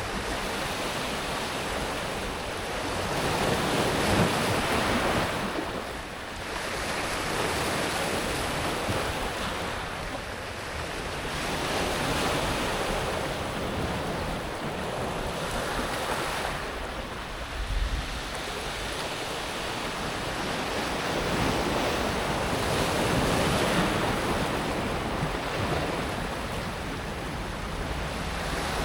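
Small waves breaking on a pebble beach and washing back over the smooth stones, swelling and easing every few seconds. A brief low thump comes a little past the middle.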